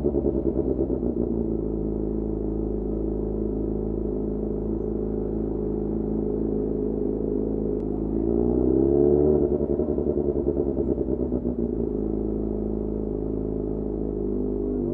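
Yamaha FZ6's 600 cc inline-four engine running steadily at low revs. About eight seconds in, a brief rise in revs holds for a moment, then drops back to the steady low note.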